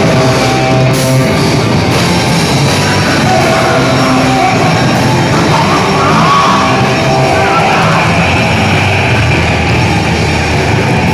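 Loud heavy rock music with electric guitar, played continuously.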